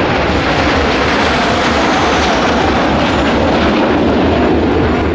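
Alpha Jet trainers flying overhead, their twin turbofan engines making steady, loud jet noise.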